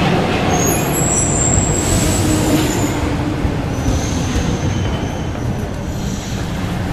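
RATP MF67 steel-wheeled metro train running past along the platform, a loud steady rumble of wheels on rail with faint high squeals twice.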